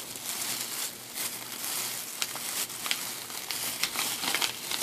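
Plastic cough-drop bag crinkling and crackling as it is handled close to the microphone, a dense run of sharp little snaps.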